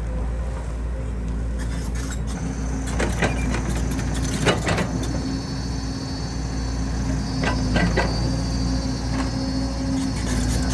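Excavator diesel engine running steadily under load, with a high whine that joins about two seconds in and scattered metallic clanks.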